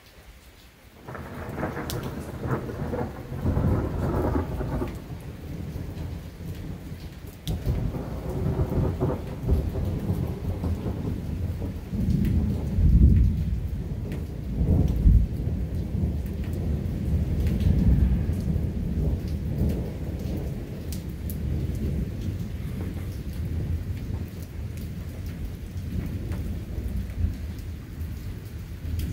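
Long roll of thunder that breaks about a second in and rumbles deep and low, swelling in several louder peaks before slowly dying away.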